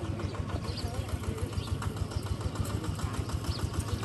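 A small engine running steadily at idle, with an even, fast pulse.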